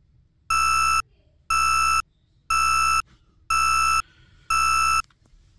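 Wake-up alarm beeping five times: half-second beeps, one each second, all at the same high pitch.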